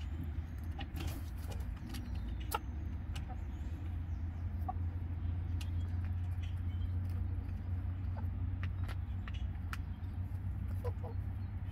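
Hens clucking softly now and then, with scattered small clicks, over a steady low rumble.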